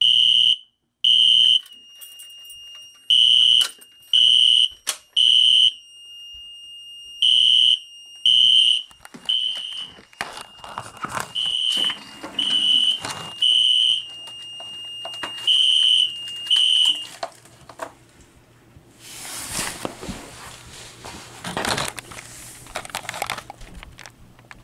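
System Sensor SpectrAlert fire alarm horn sounding in the temporal-three pattern, three short high-pitched blasts then a pause, over and over, with a steady high tone running underneath. It is driven by a Fire-Lite MS2 panel that has malfunctioned and will not silence or reset. The alarm cuts off about 17 seconds in, and rustling and crinkling handling noise follows.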